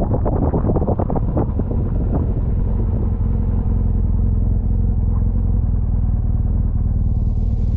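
Motorcycle engine running at a steady pitch while riding, heard from the bike itself. Wind buffets the microphone over the first couple of seconds.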